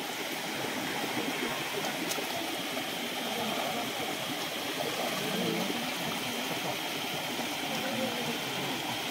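Steady rush of a rocky forest stream's water.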